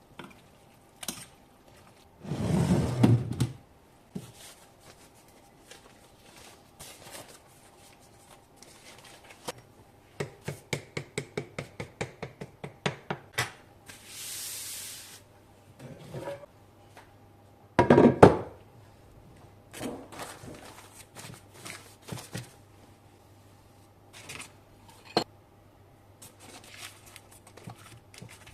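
Kitchen preparation sounds: utensils and dishes knocking and clinking, with two heavier thuds. About halfway through comes a run of quick, even taps lasting a few seconds.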